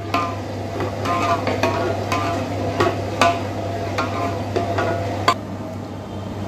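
Long metal ladle scraping and knocking against the side of a large aluminium pot while stirring onion gravy into boiling curry stock, in strokes about twice a second, each with a short metallic ring. A steady low hum runs underneath.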